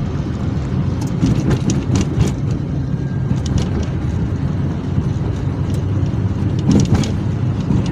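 Steady road and engine rumble inside a moving car's cabin, with a few scattered clicks and knocks.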